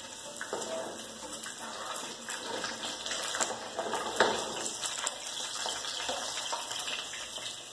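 Omelette eggs frying softly in a pan on a gas burner, a steady hiss with scattered small clicks and scrapes of the utensil stirring them in the pan.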